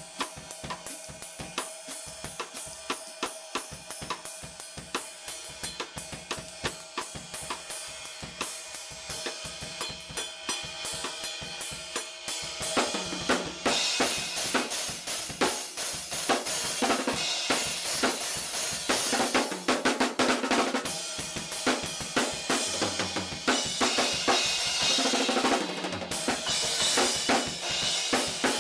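A drum kit played as a groove of snare, bass drum and cymbals, recorded on a Flip MinoHD camcorder's built-in microphone. The playing is lighter for the first half, then grows louder with heavier cymbal crashes from about halfway through.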